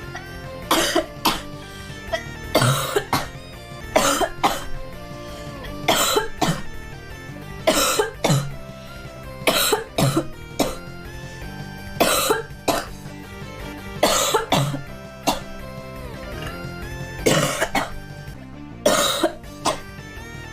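A girl coughing over and over, a single or double cough about every two seconds, over steady background music.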